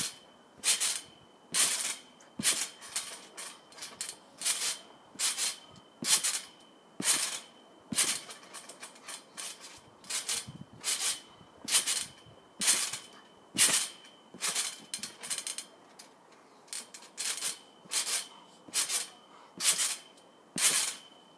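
Garden trampoline's mat and springs sounding with each bounce: a sharp, high-pitched snap roughly once a second in an uneven rhythm, some landings giving a quick double snap.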